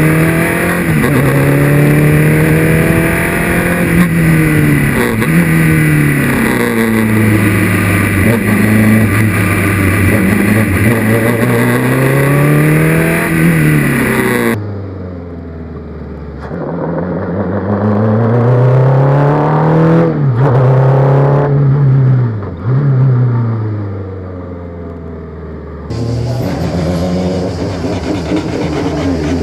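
Renault engine of a Formula 2 single-seater racing car revving hard through corners and straights, its pitch climbing under acceleration and falling away again and again, with a few quick dips at the gear changes. Through the middle stretch it sounds muffled, heard from inside the driver's helmet, then clearer again near the end.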